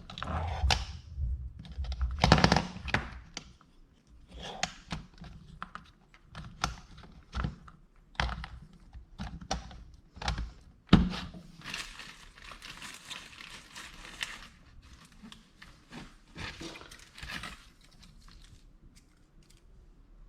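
Irregular clicks, knocks and clatter of 18650 battery cells and nickel strip being handled and set down on a workbench, with a couple of louder knocks and a stretch of rustling about twelve seconds in.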